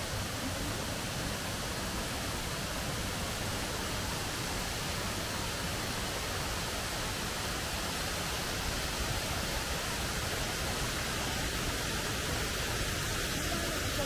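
Steady rush of a waterfall: many thin cascades of water spilling over a rock face and splashing into the stream below.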